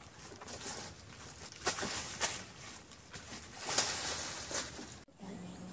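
Irregular crunching and rustling of dry leaves and twigs underfoot as people scramble up a steep, leaf-strewn bank. The sound cuts off abruptly near the end, leaving a faint low hum.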